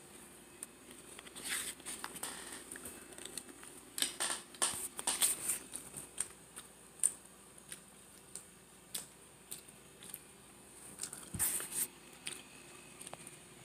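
Irregular clicks and rustles of a phone being handled and carried about, with louder clusters about a second and a half in, around four to five seconds in, and near the end.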